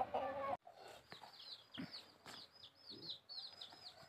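A chicken gives a short call, then the sound breaks off abruptly. After the break comes a rapid run of short, high, falling chirps from small birds, several a second.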